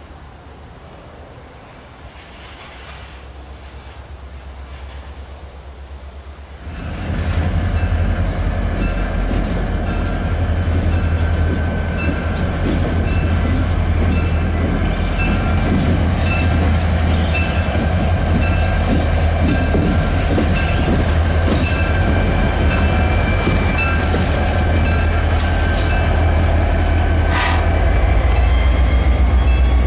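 Freight cars rolling by at a low level. About seven seconds in it gives way to the loud, steady running of an EMD SD40T-2 locomotive's 16-cylinder two-stroke diesel as it moves past close by, with regular clicks of wheels over rail joints.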